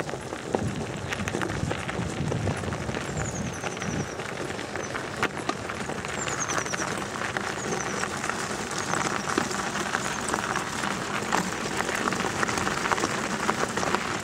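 Wheels of a dog-drawn rig rolling over a gravel trail: a steady crunching crackle of gravel with many small clicks.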